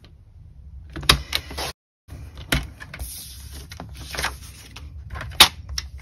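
Cardstock and designer paper pieces being handled and shuffled on a table: rustling paper with a few sharp taps, about a second in, at about two and a half seconds, and near the end. All sound drops out briefly just before two seconds in.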